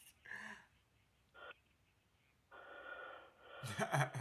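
A person's short, breathy gasp near the end, over a steady low hiss that starts about two and a half seconds in.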